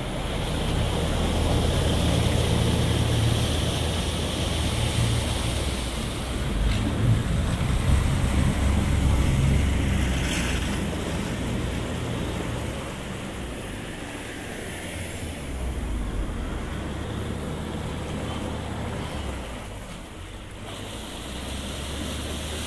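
Canal narrowboat's diesel engine running and its propeller churning the water as the boat passes, a low rumble loudest over the first ten seconds or so and easing off after. Wind buffets the microphone.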